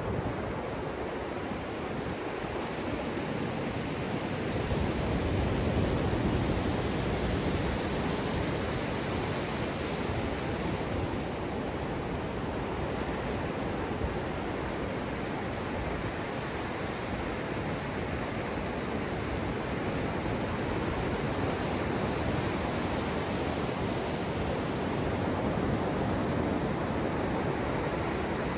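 Ocean surf breaking offshore and washing up the sand right at the microphone: a steady rushing noise that swells louder about five seconds in and again near the end as waves wash in.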